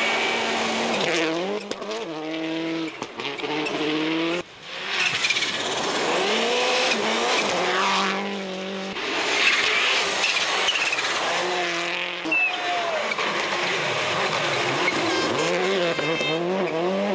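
Subaru Impreza WRC rally cars' turbocharged flat-four engines revving hard at speed, the pitch climbing and dropping again and again through gear changes, over a rush of tyre noise. Several short passes follow one another, with a brief drop-out about four seconds in.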